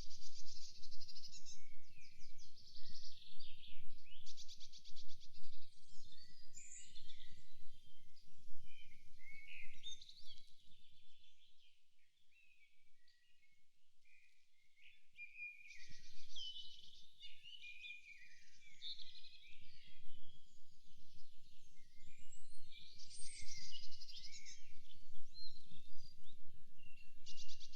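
Several birds singing together in a forest, overlapping chirps and rapid trills, over a low rumble. The rumble and the birdsong die down for a few seconds about halfway, then both return.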